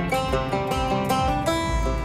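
Instrumental passage of a country song: a quick run of picked notes on plucked strings over a low bass, with no singing.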